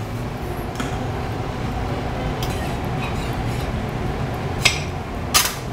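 Ceramic ramekins and a metal spatula clinking against a metal baking tray and a ceramic plate as the baked gratins are moved onto plates. There are a few sharp clinks, the loudest near the end, over a steady low hum.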